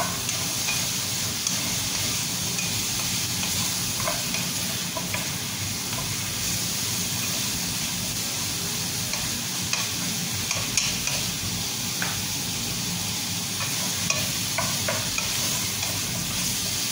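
Chicken pieces sizzling as they sauté in a frying pan, stirred with a wooden spatula that now and then scrapes and knocks against the pan. The sizzle is a steady hiss throughout, with a few short knocks scattered through it.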